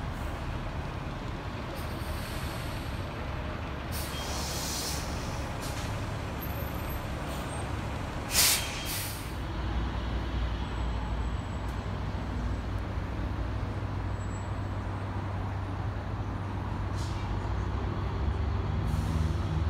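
City buses running in a busway: a steady low engine rumble with air brakes hissing, a softer hiss about four seconds in and a short, loud release about eight seconds in. A low hum grows steadier and slightly louder in the second half.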